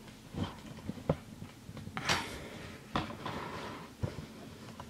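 Camera handling noise: scattered light knocks, clicks and rustles as the camera is moved down and repositioned.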